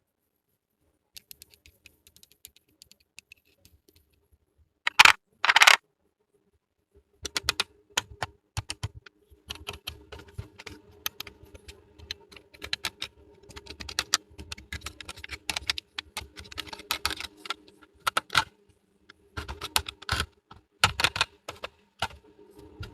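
Small plastic miniature toy pieces being handled, with many quick clicks and taps in irregular runs, and two short louder rustling bursts about five seconds in.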